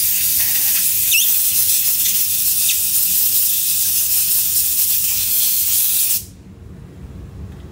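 Compressed-air blow gun hissing in one long, steady blast into a drive housing held in a vise, cutting off suddenly about six seconds in.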